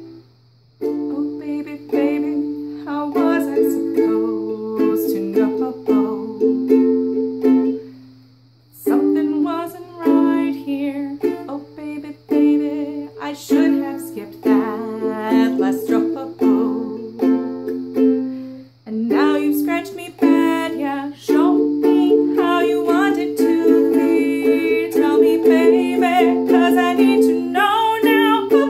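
Kohala ukulele strummed in chords, with a woman singing along to the pop tune. The strumming stops briefly near the start and again about eight seconds in.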